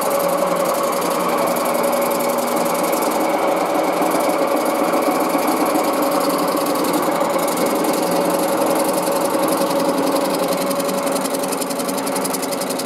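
Engine lathe running steadily, turning a wooden workpiece, with an even hum and whine from its motor and gearing.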